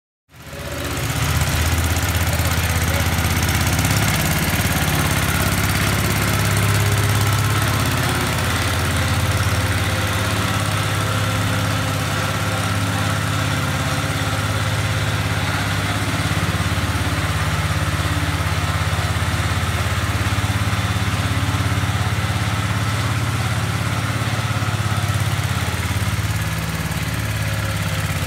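Sears Hydro-Trac garden tractor's engine running steadily while the tractor is driven.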